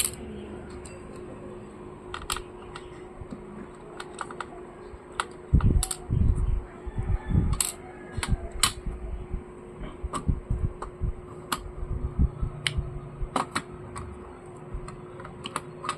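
Scattered small clicks and light knocks of a screwdriver and plastic laptop parts being handled as the laptop's internal speaker is unscrewed and lifted out, with a run of louder knocks in the middle. A steady faint hum runs underneath.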